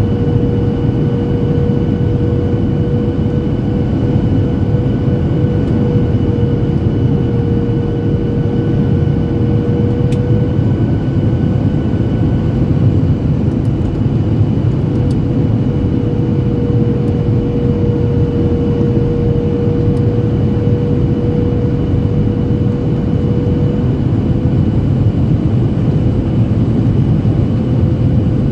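Boeing 737-800 jet engines heard from inside the passenger cabin: a steady roar with a steady whine held over it, without a thump or a change in power, as on the landing approach.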